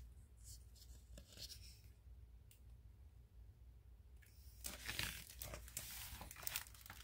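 Near silence with a low steady hum, then about four and a half seconds in, the paper page of a picture book being turned, rustling.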